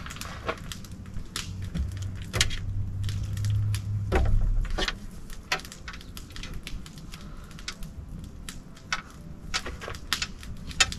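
Grouse being cut up with a knife on a metal table: scattered sharp clicks and cracks of the blade and small bones, with a low hum during the first few seconds.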